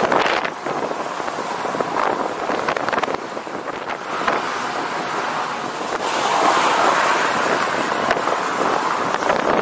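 Wind rushing over the microphone of a camera on a moving bicycle, mixed with the noise of passing road traffic; the rush grows louder about six seconds in.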